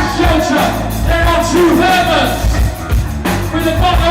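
Punk rock band playing live, with a lead vocal over bass and a driving drum beat.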